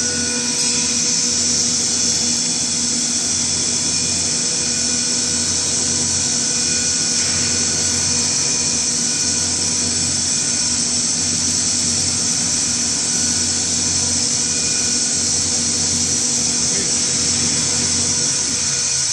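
RX-200 vacuum emulsifier homogenizer mixer running: a steady high-pitched whine over a loud, even hiss, from its high-speed motors.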